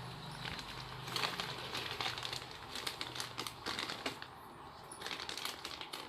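Plastic accessory packaging crinkling and rustling as it is handled, with irregular small clicks and taps.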